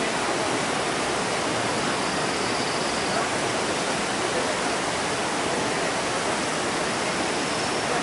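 Waterfall: a steady, even rush of white water pouring down.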